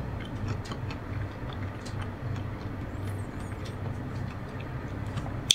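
Steady low background rumble with slow swells and a few faint clicks, ending in one sharp click.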